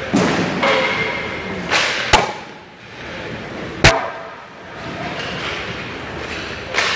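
Ice hockey warm-up shots: pucks and sticks knocking and cracking, with two sharp cracks about two and four seconds in and several softer thuds, each trailing off in the rink's echo.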